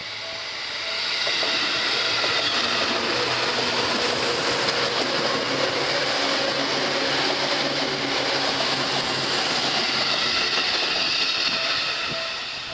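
Seibu Shinjuku Line electric train passing over a level crossing: steady wheel and rail noise that swells about a second in, holds for roughly ten seconds, then fades. The crossing's warning bell rings in a pulsing ding-ding that is heard at the start and again near the end as the train noise drops away.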